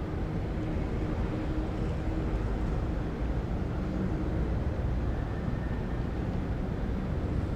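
City skyline ambience: a steady low rumble of distant traffic, with a faint hum over the first few seconds.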